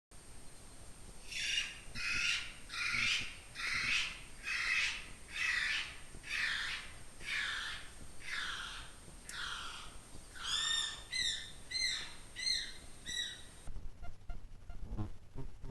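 North Island brown kiwi pair duetting. The female gives a guttural rasping call of about a dozen hoarse notes in a steady series. About two-thirds of the way through, the male answers with his high-pitched, excited call of six or so clear notes that rise and fall.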